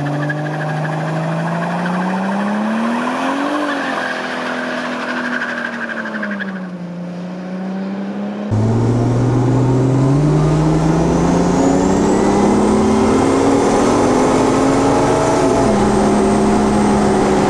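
Toyota Supra engine in a VAZ-2104 revving hard under full acceleration, first heard from outside as the car pulls away, its pitch rising, dropping and fading. About halfway through it is heard from inside the cabin, louder, climbing in pitch and dropping back at each gear change, twice near the end.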